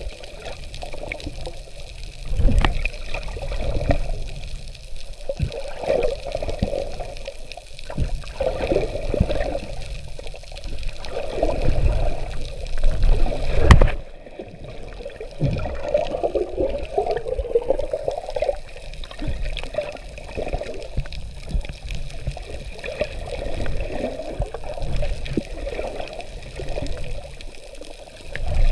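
Water sloshing and bubbling around an action camera's waterproof housing underwater, in irregular low surges every couple of seconds, with one sharp click about halfway through.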